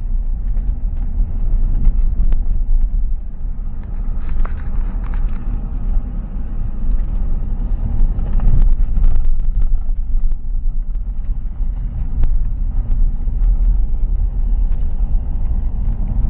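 A car driving, with a steady low road rumble and occasional light knocks.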